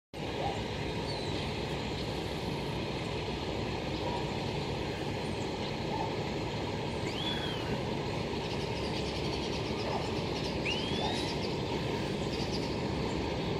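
Heavy diesel truck engine running steadily at a crawl while hauling an oversize load, with two short bird chirps about halfway through and near the end.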